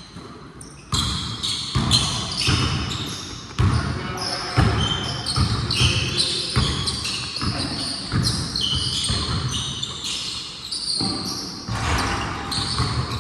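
Basketball bouncing on a hard court, with thuds coming roughly once or twice a second.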